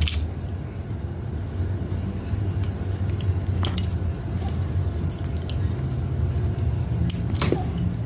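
Hand crimping tool squeezing a metal crimp sleeve onto heavy monofilament fishing line. Its jaws and handles give a few sharp clicks, and the loudest clicks come near the end as the tool is put down on the mat. A steady low hum runs underneath.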